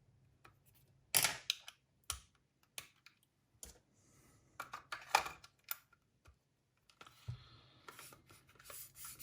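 Scattered sharp clicks and light handling noises from the small plastic parts of a cassette walkman being handled, with denser rubbing and handling from about seven seconds in.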